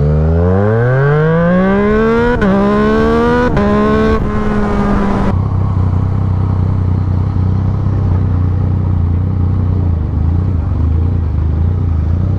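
Yamaha MT-09's three-cylinder engine with a full aftermarket exhaust accelerating hard from a drag launch. It rises in pitch through quickshifted upshifts about two and a half, three and a half and four seconds in, then the throttle shuts about five seconds in and it drops to a low, steady rumble.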